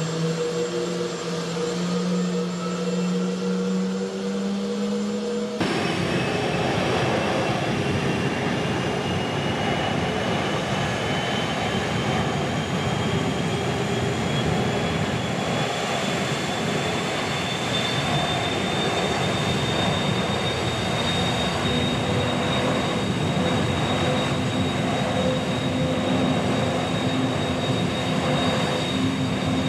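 Aircraft engine noise: a steady, loud rush with a high whine that slowly rises in pitch. The sound changes abruptly about five and a half seconds in.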